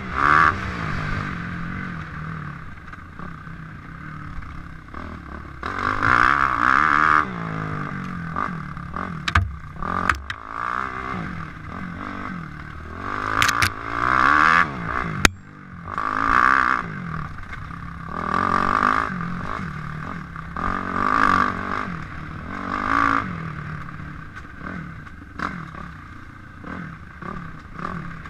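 Suzuki RM-Z250 four-stroke single-cylinder motocross engine revving up and dropping back again and again as the rider opens and shuts the throttle on a dirt trail, with loud surges every few seconds. There are a few sharp knocks and clatters from the bike around the middle.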